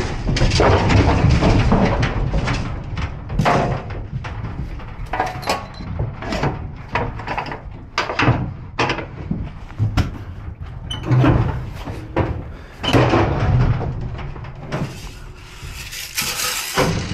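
Clanks, knocks and rattles of an aluminum livestock trailer's internal gates and latches being worked by hand. Near the end, a rattle paddle is shaken, giving a steady rattling hiss for a couple of seconds.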